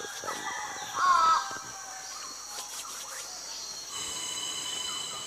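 A bird gives one short warbling call about a second in, over faint wild ambience; from about four seconds in, insects sing in steady high-pitched tones.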